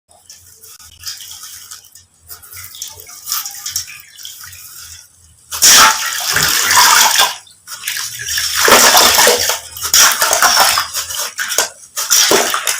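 Dried sand cement being crushed and crumbling. There is faint crackling at first, then much louder crunching and pouring of crumbs from about five and a half seconds in, coming in surges.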